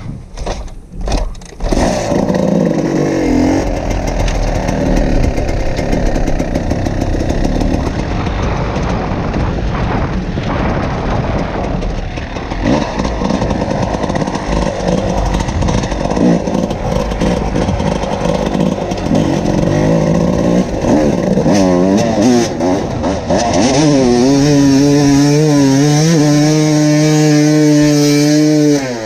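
Two-stroke dirt bike engines, a Gas Gas EC300 and a Yamaha YZ250, running under riding, the pitch rising and falling with the throttle. Near the end one engine holds a steady pitch for about five seconds, then breaks off suddenly.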